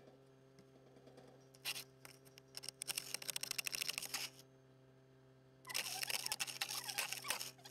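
Ice being scraped off a car windshield, heard from inside the car: crackling, scratchy strokes in bursts, a short one about two seconds in, a longer one just after, and another starting near six seconds. A faint steady electrical hum runs underneath.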